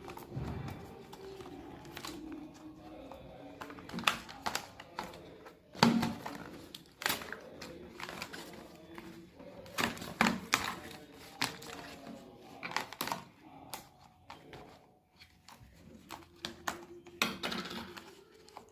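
Irregular sharp plastic clicks, taps and crinkles of a wireless neckband earphone and its packaging being handled, a few louder knocks among them.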